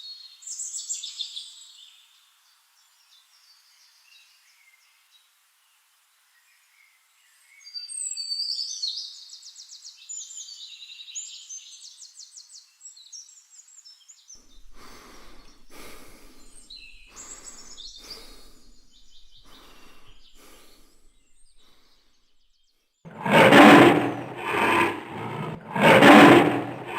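Birds chirping, then a lion calling: a run of short, evenly spaced calls from about halfway, building to two loud roars near the end.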